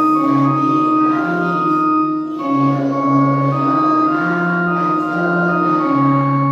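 A keyboard instrument with an organ-like sound plays sustained chords, with a melody of held notes that changes pitch every half second to a second.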